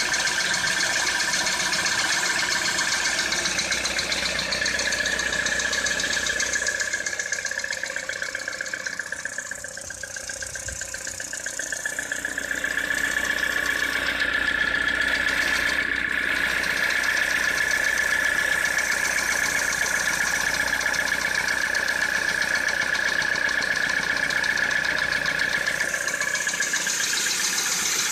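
2013 Citroën C4 engine idling with a knock, the fault the recording is made to show. A steady high tone runs over the engine noise, and the sound dips briefly about ten seconds in.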